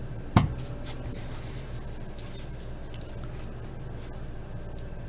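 A single sharp knock about half a second in, then faint rustling and handling noises over a steady low hum, as a box of trading cards is handled on a table.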